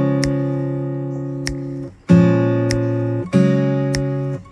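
Background music: acoustic guitar strumming chords that are left to ring and fade, with fresh strums about two and three and a half seconds in. A light percussive tick falls roughly every second and a quarter.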